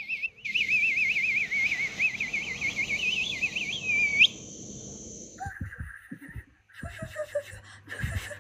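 A person whistling a fast warbling note for about four seconds, ending in a quick upward sweep, followed by fainter sounds.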